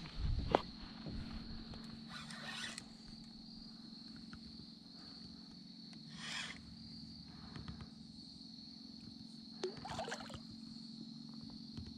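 Spinning reel cranked in short bursts during a retrieve, then a splash at the surface near the end as a hooked bass fights at the line, over a steady high drone of insects.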